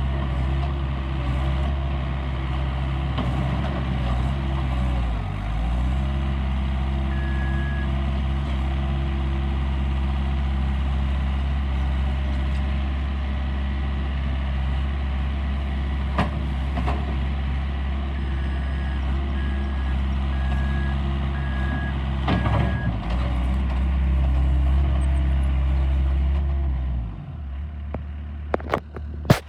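Gehl RT175 skid steer's engine running steadily, its pitch dipping briefly twice, then shutting off near the end. A backup alarm beeps several times in a row shortly before the shutdown.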